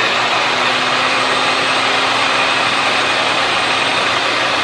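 Craftsman table saw's electric motor running steadily at full speed, a loud even hum and whine with a rushing fan-air hiss: the repaired motor, which had been seized so the blade wouldn't turn, now runs freely.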